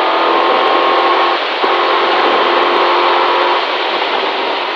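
Rally car engine held at high revs at full throttle, heard inside the cabin over road noise, with a brief dip about a second and a half in; near the end the engine note drops away as the driver lifts off.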